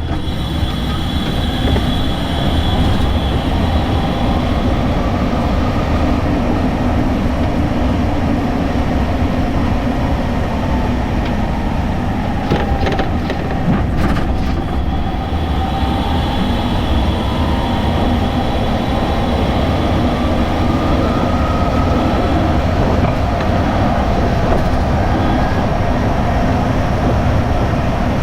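Driving noise picked up at the rear of a VW-based DC electric car conversion: a steady rush of road and wind noise, with the electric motor's whine gliding up and down as the speed changes. A few sharp clicks come about halfway through.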